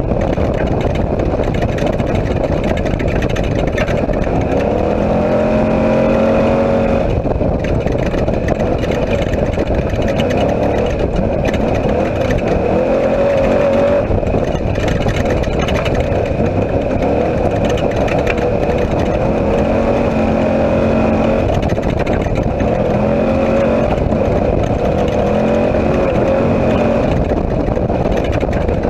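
Off-road race vehicle driven hard over a dirt track, heard from inside the open cockpit: loud, steady engine and road noise, with the engine pitch rising and falling several times as the driver accelerates and lifts off.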